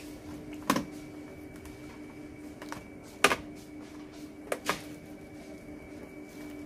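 Sharp plastic clicks and clacks from a Fresenius 5008 CorDiax haemodialysis machine as its front door and bloodline tubing are handled, four in all, the last two close together. The machine hums steadily throughout.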